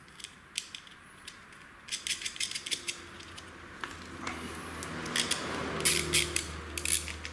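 Small metal parts and a hand tool clicking and rattling as a nut is threaded and tightened on a turn-signal mounting bracket. The clicks come in quick clusters and are busiest and loudest near the end.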